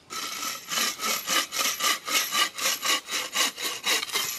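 Handmade wooden folding bow saw, its blade held tight by a twisted cord, cutting a wooden stick with quick, even back-and-forth strokes, about four a second.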